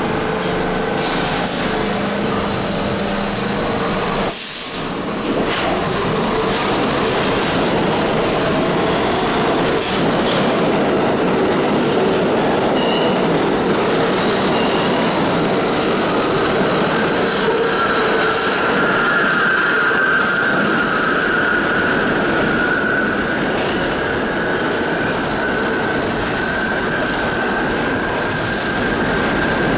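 R-32 subway train with Westinghouse traction motors pulling out of the station and running past, a steady loud rumble of wheels on rail. About halfway through, a high steady wheel squeal joins and holds as the last cars leave.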